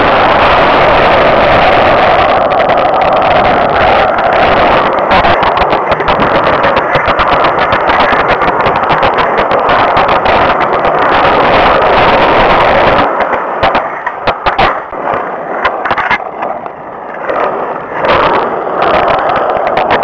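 Skateboard wheels rolling on rough asphalt: a loud, steady rumble full of small clicks and rattles. About thirteen seconds in the rumble drops away, leaving scattered sharp clicks and knocks.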